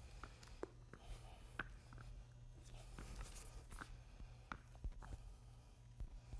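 Faint, irregular clicks and sticky taps of spiked shoes stepping through wet epoxy coating, with a squeegee dragged across the floor, over a low steady hum.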